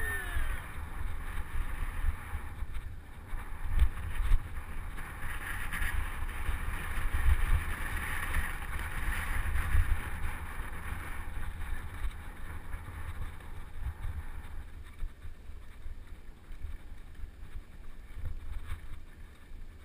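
Wind buffeting a bike-mounted camera's microphone over the rumble of a mountain bike riding rough grassy doubletrack, with a hiss that fades about three-quarters of the way through.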